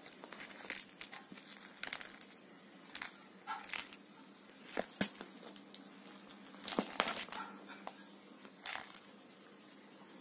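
Short, irregular scratchy rustles and crinkles of a cat wrestling and kicking at a fur toy mouse on a woven fabric sofa cover.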